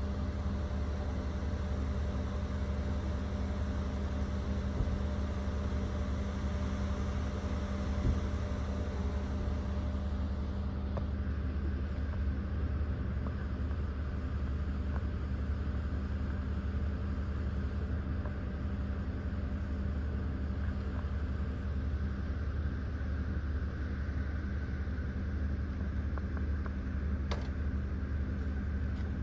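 A steady low mechanical rumble with a constant hum, unchanging throughout.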